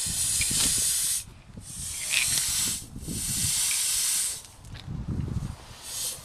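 Air hissing out of a hole drilled in a truck tire, in stretches of about a second with short breaks, over a low rumble.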